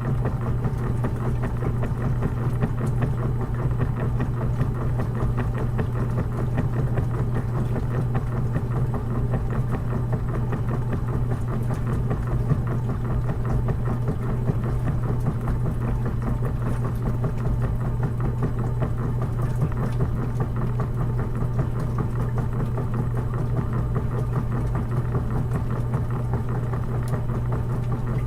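Washing machine running with a steady, unchanging low hum.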